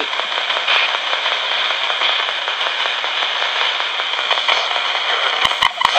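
RadioShack pocket AM radio scanning through the band as a ghost box, giving a steady hiss of static with light crackle. A few sharp clicks come near the end.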